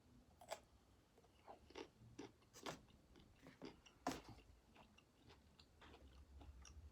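Faint close-up chewing and crunching of food, heard as scattered short crunches and mouth clicks with the loudest about four seconds in. The food is hibachi vegetables, including firm broccoli stems.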